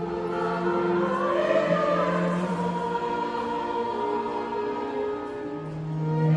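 A vocal ensemble singing sustained chords. A higher voice swells and glides over held lower notes about a second in.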